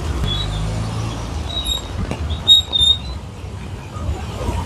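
Low, steady rumble of road traffic with an engine hum in the first second, and a few short, high-pitched chirps or squeaks around the middle, which are the loudest sounds.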